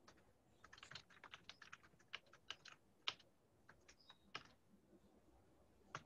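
Computer keyboard typing, faint, with keystrokes clicking in quick irregular runs broken by short pauses; one sharper keystroke about three seconds in.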